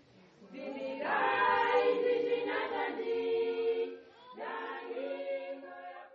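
A choir singing, many voices holding long notes together. The singing swells about a second in, breaks off briefly around four seconds in, and resumes.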